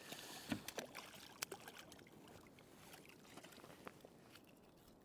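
Near quiet on a fishing kayak at sea: a few faint, short clicks and knocks of handling on the boat in the first second or two, then only a faint background hiss.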